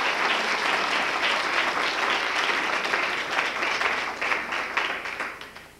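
Audience applauding: many hands clapping in a dense patter that thins out and stops near the end.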